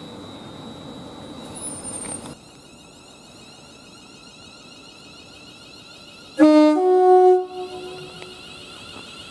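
Two-tone horn of an approaching Class 350 Desiro electric multiple unit, sounded once about six seconds in: a low note stepping up to a higher note, about a second long in all. Before it, the rumble of a passing train that cuts off abruptly about two seconds in.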